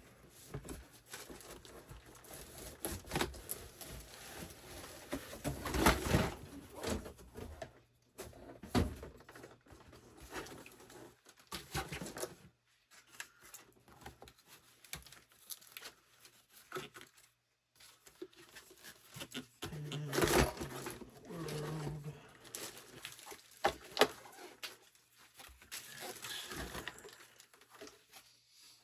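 Packaging being handled and opened: irregular rustling, crinkling and tearing, with scattered knocks and clicks as parts are taken out.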